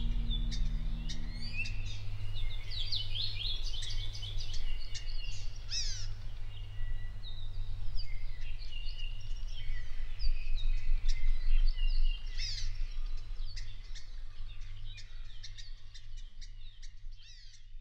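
A chorus of forest birds, many overlapping chirps, whistles and warbled song phrases, over a steady low hum, fading out near the end.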